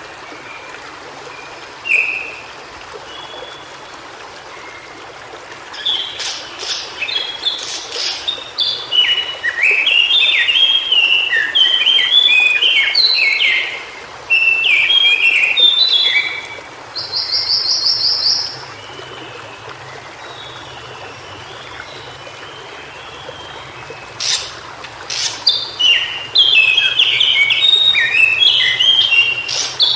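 White-browed shortwing singing: jumbled runs of quick high notes, one bout starting about six seconds in and another from about twenty-four seconds on, with a brief fast trill in between. A steady hiss lies under the song throughout.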